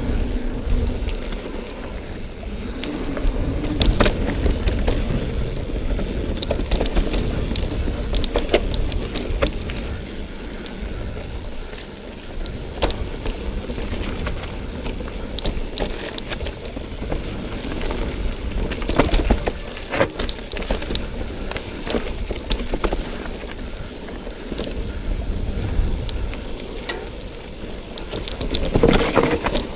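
Mountain bike descending a dirt trail: tyres rumbling over the ground and wind buffeting the action-camera microphone, with frequent sharp rattles and clacks from the bike over bumps.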